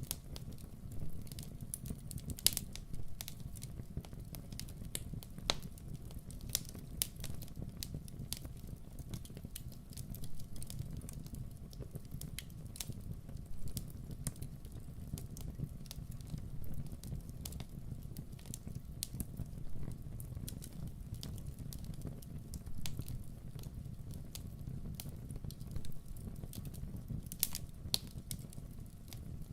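Campfire burning, with a steady low rumble of flames and frequent irregular crackles and pops from the burning wood.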